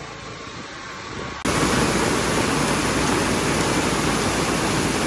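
Heavy rain pouring down in a storm, a loud, steady hiss that starts abruptly about a second and a half in; before that, a quieter hiss with a low hum.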